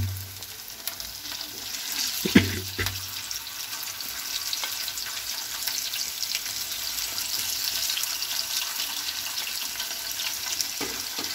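Masala-coated crabs sizzling and crackling steadily in a pan of hot oil as they are dropped in to deep-fry. A sharp clack about two seconds in.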